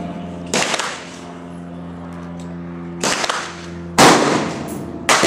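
Four gunshots, unevenly spaced, with the last two the loudest, over a steady hum.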